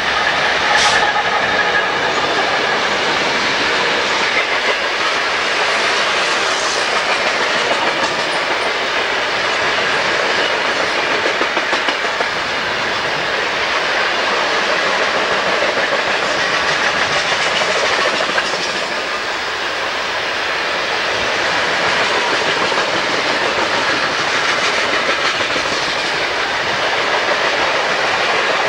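A Norfolk Southern freight train passing close by, loud and steady. Its lead diesel locomotives go past near the start, then a long string of molten-sulphur tank cars rolls by, steel wheels running on the rails.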